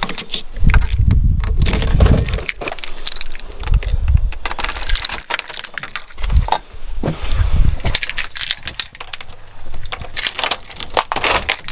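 Irregular clattering and knocking, close and loud, with dull low thumps among them.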